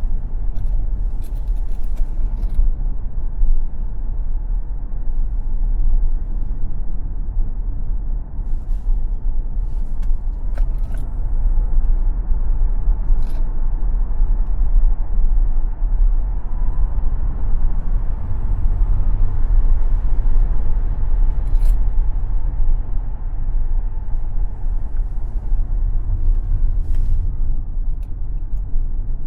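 Tesla Model X electric car driven hard on a racetrack: a steady low rumble of tyres and road with wind noise, and no engine sound. A faint rising whine comes in around the middle, and a few sharp ticks are heard.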